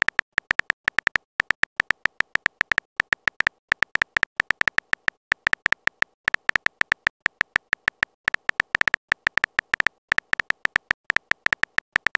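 Phone keyboard typing sound effect: rapid short clicks, several a second, in runs with brief pauses, as a chat message is typed out letter by letter.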